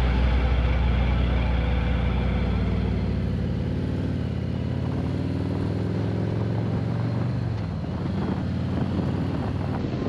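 Harley-Davidson Road King's V-twin engine pulling away and accelerating. Its pitch rises steadily, dips briefly about eight seconds in, then climbs again.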